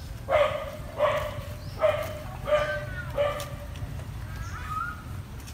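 An animal calling five times in a row, about one short call every 0.7 seconds, each starting sharply and dying away, followed by a few faint high chirps near the end.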